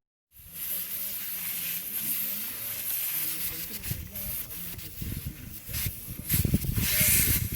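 Air hissing steadily out of an off-road tyre's valve with the valve core unscrewed, deflating the tyre for off-road driving.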